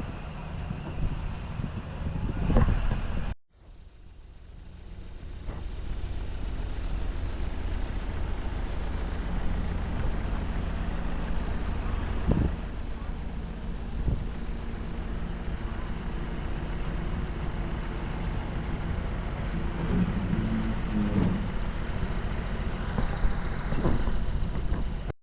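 Bulldozer's diesel engine running steadily, with scattered knocks and clanks of the machine working. The sound cuts out abruptly about three seconds in and fades back.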